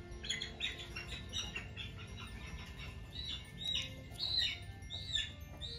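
Birds chirping: a quick run of short chirps, then repeated arched, down-slurred whistled notes about twice a second, over a low steady background.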